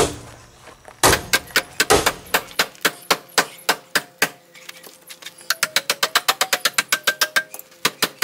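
Long-handled hammer beating on the sheet-metal inner fender and chassis inside a Subaru Legacy's front wheel well, pushing the metal back for clearance. A long string of sharp metallic bangs that speeds up to about six blows a second about halfway through.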